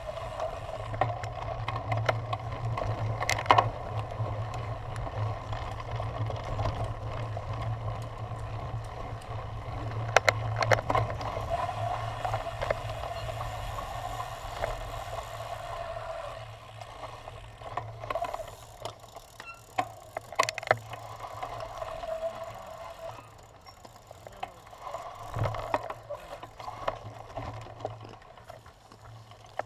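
Cyclocross bike ridden over bumpy grass, heard through a camera mounted on the bike: a continuous rumble and rattle from the tyres and frame, with scattered sharp knocks. It gets quieter and more uneven about halfway through.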